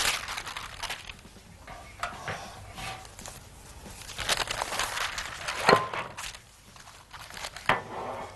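Roll of parchment paper being handled and unrolled, rustling in uneven bursts, with one sharp knock about two-thirds of the way through.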